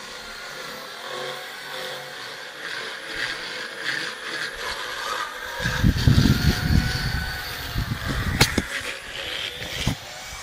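Drill-driven power dental float running with a steady whine as it files a horse's teeth; from about halfway through it turns louder and rougher as the burr grinds against the teeth.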